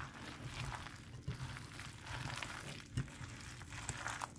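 A hand squeezing and mixing chopped vegetables through thick gram-flour batter in a glass bowl: soft, irregular squelching and crunching, with one sharper knock about three seconds in.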